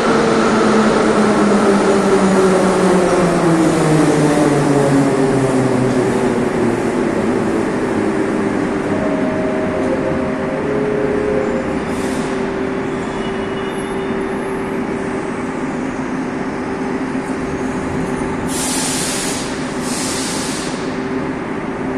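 Metro train's traction motors whining down in pitch as it brakes to a stop at the platform, settling into a steady electrical hum. Near the end come two short hisses of air, one after the other.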